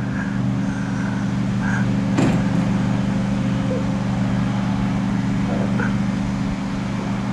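Steady low mechanical hum, with a single sharp clatter about two seconds in.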